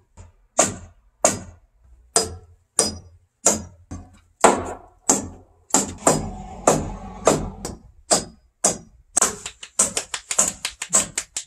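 Hammer blows on heavy timber roof framing, a steady beat of sharp, ringing strikes about one and a half a second, changing to quicker, lighter taps about three a second near the end.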